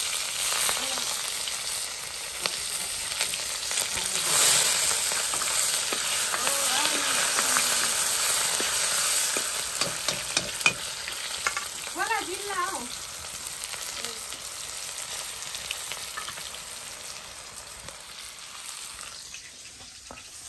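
Vegetables frying in hot oil in an iron wok: a steady, loud sizzle with ladle scrapes and knocks as they are stirred, dying down gradually over the second half.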